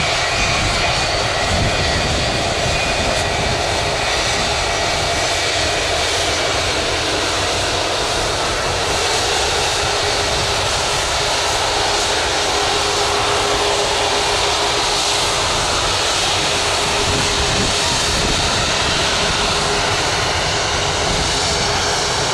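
Boeing 757 twin jet engines running steadily as the airliner taxis, a dense rushing noise with a steady hum and a high whine that fades out in the first few seconds.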